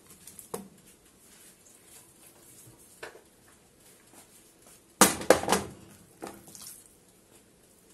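Kitchen handling: faint rustling and small clicks as vegetables are moved in an aluminium roasting dish, then about five seconds in a sudden loud clatter of a few knocks as a plastic bowl of seasoned meat is set down beside the dish.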